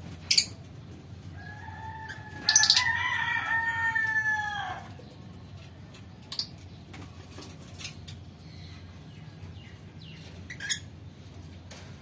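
A rooster crows once, a long call of about three and a half seconds rising and falling in pitch, loudest in the middle of the stretch. Short sharp high chirps from lovebirds come now and then before and after it.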